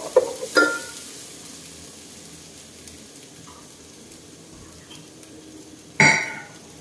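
Onion, garlic and curry leaves sizzling in olive oil in a pot: a steady faint frying hiss. A wooden spatula knocks against the pot a couple of times in the first second, and there is one short loud sound about six seconds in.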